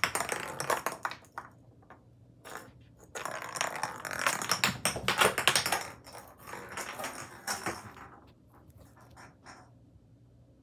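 Rapid tapping and clattering of a small ball and a kitten's paws on a hardwood floor as the kitten bats and chases the ball. There are two busy runs, one at the start and a longer one from about three to six seconds in, then fewer, fainter taps that die away.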